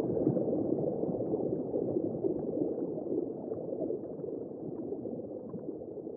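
Muffled underwater water noise: a low bubbling wash with faint scattered ticks, slowly fading out.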